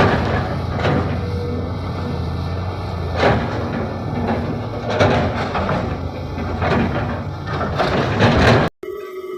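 JCB 3DX backhoe loader's diesel engine running steadily, with knocks and clanks every second or two as it works; the sound cuts off suddenly near the end.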